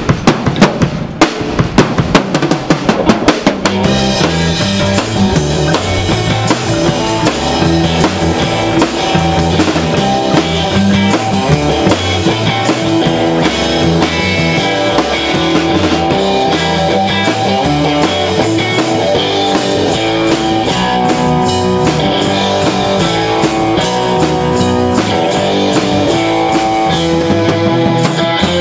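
Live rock band with no vocals: the drum kit plays alone for the first few seconds, then electric bass and electric guitar come in with the drums about four seconds in and carry on in a steady, driving rhythm.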